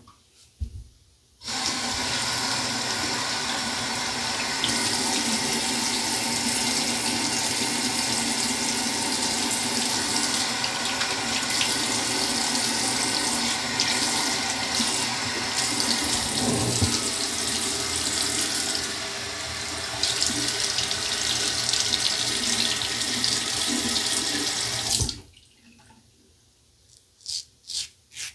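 Bathroom sink tap running in a steady stream for over twenty seconds, turned on about a second and a half in and shut off abruptly. Near the end, quick rasping strokes of a safety razor cutting stubble on the neck, about two or three a second.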